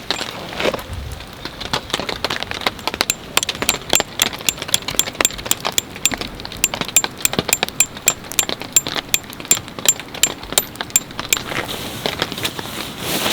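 A rapid, uneven series of small sharp clicks and ticks, many with a faint high metallic ping. They thicken a few seconds in and stop shortly before the end.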